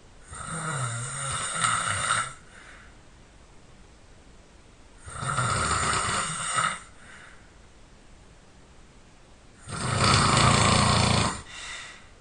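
A person snoring loudly: three long snores, each about two seconds, spaced about four and a half seconds apart, each followed by a brief softer breath out.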